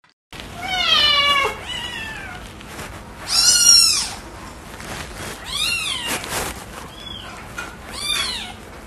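Domestic cat meowing about six times, each call under a second long. The first call falls in pitch; later ones rise and fall. The loudest call comes a little before the middle.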